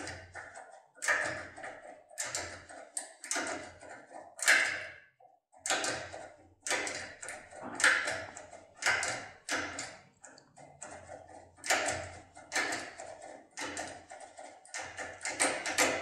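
Topolino decoder pick clicking and tapping against the pins of an ABUS D6 euro cylinder as it is worked in the keyway: sharp, irregular metallic clicks about twice a second, as the pins are set during picking.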